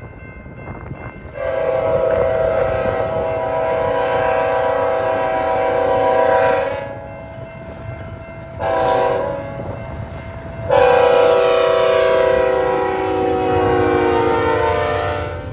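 Diesel freight locomotive's multi-chime air horn sounding a long, a short and a long blast, the closing part of the grade-crossing signal. The pitch drops during the last long blast as the locomotive passes.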